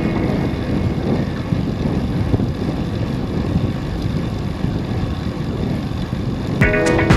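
Wind rumbling over the microphone of a camera riding on a bicycle climbing a road, a steady, dense low rumble. Music comes back in near the end.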